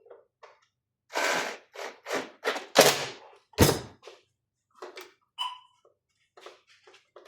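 A series of knocks and clunks as ventilator parts are handled and fitted together during reassembly, the heaviest two about three and four seconds in, followed by lighter clicks.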